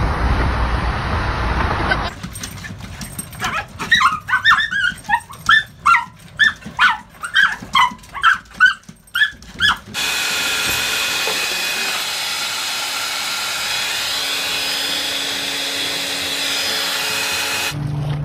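A small dog barking in a quick run of about a dozen short, high yaps, roughly two a second. Before it comes steady car road rumble, and after it a steady hiss.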